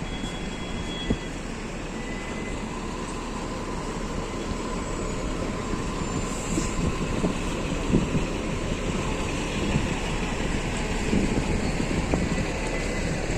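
Steady city-street ambience: a continuous rumble of traffic and outdoor noise, with a few faint steady tones and occasional short knocks.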